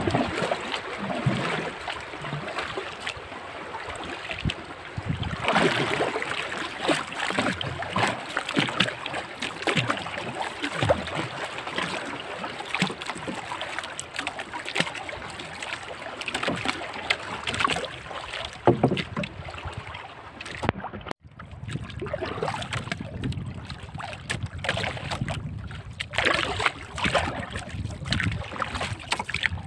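Water splashing and slapping against the hull of a small wooden outrigger boat (bangka) under way on open sea, with wind buffeting the microphone. The sound cuts out for an instant about two-thirds of the way through.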